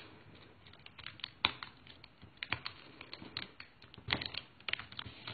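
Scattered light clicks and taps of fingers and fingernails handling paper, pressing a cardstock label mounted on foam dimensionals onto a cellophane-bagged candy tray. The taps come irregularly, with a couple of sharper ones about a second and a half and four seconds in.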